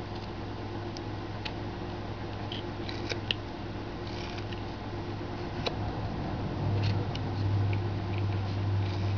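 Carving knife paring small chips from a hand-held wood carving: scattered faint short cuts and scrapes, over a steady low hum.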